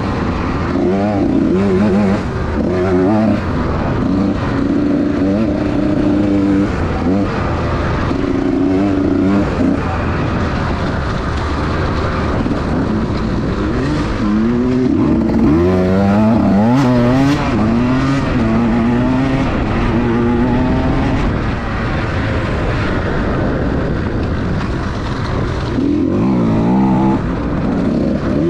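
Small-bore two-stroke dirt bike engine being ridden hard, revving up and easing off over and over, its pitch climbing and dropping with each throttle change and shift. A few short clicks or knocks come through around the middle.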